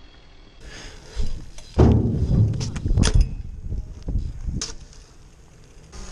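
A BMX bike rolling on wet asphalt: a hiss of tyres and air, then a loud rumbling burst with knocks and clanks of the bike about two seconds in. Sharp clacks follow at about three and four and a half seconds in.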